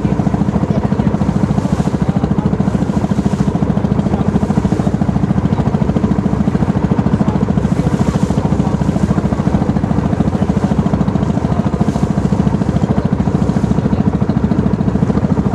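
Boat engine running steadily with a rapid, even throb, heard from on board the boat.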